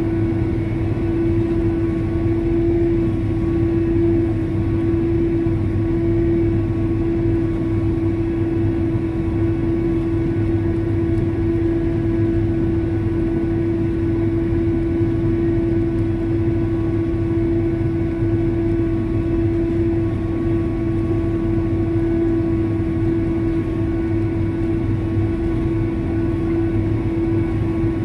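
Tractor running steadily under load, heard from inside the cab: an even drone with a strong steady hum over a low rumble, unchanging throughout.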